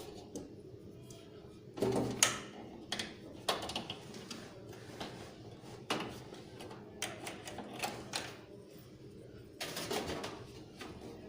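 Irregular clicks, taps and rustles of cables and plastic connectors being handled and fitted inside a desktop computer case, with a louder knock about two seconds in and another cluster near the end.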